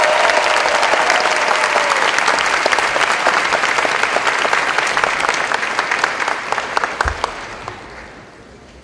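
Audience applauding, a dense patter of many hands clapping that thins out and dies away about eight seconds in.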